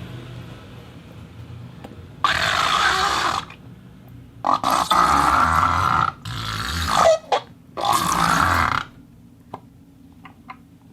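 Four rasping, squelchy bursts of about a second each from a handled foley prop, the later ones with a squeaky edge and a short rising squeal about seven seconds in, followed by a few faint ticks.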